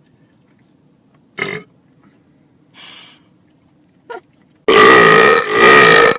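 A person lets out a long, loud belch about four and a half seconds in, steady in pitch, with a brief break partway before it carries on. Before it there are only a couple of faint, short noises.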